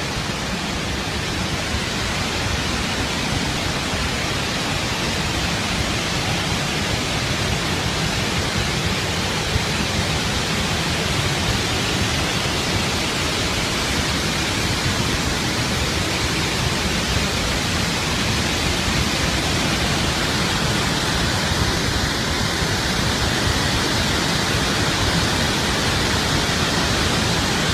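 Water from a dam's opened emergency spillway gates gushing out in a huge jet: a steady, unbroken rush of water.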